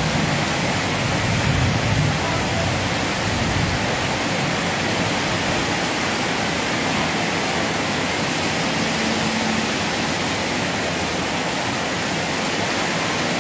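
Heavy tropical rain pouring onto a flooded street and pavement, a steady, unbroken hiss of splashing water.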